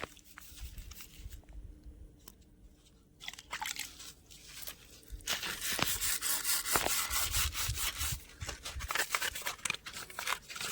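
A toy car being scrubbed clean by hand, a rubbing and scraping noise in quick strokes. It starts after a few light clicks about five seconds in, eases off around nine seconds and picks up again near the end.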